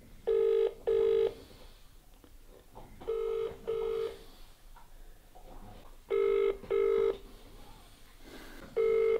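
British ringback tone from a mobile phone on speakerphone: the double ring repeats about every three seconds, three full double rings and the start of a fourth. It means the called payphone is ringing and nobody answers.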